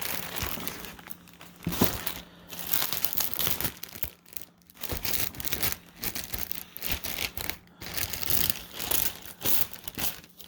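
Plastic packaging crinkling and rustling in irregular bursts as microfiber towels are unwrapped and handled.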